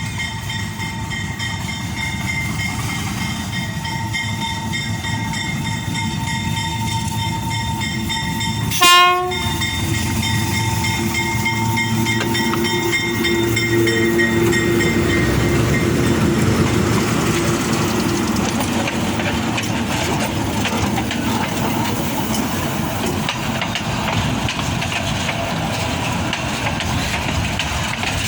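Freight train running, with a steady high whine through the first half. About nine seconds in the locomotive horn gives one short blast. The rolling noise of the train then grows louder.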